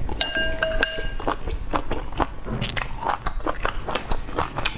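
Close-miked chewing of spicy pork, with wet mouth clicks and smacks several times a second. In the first second a few short squeaky tones sound as well.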